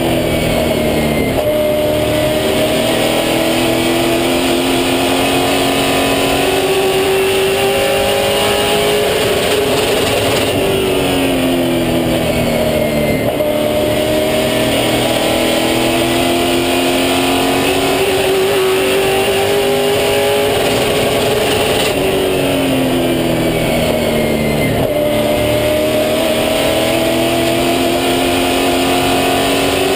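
Super late model stock car's V8 racing engine at full race speed, heard from inside the cockpit. Its pitch falls as the driver lifts into a turn and climbs again as he gets back on the throttle, three times over.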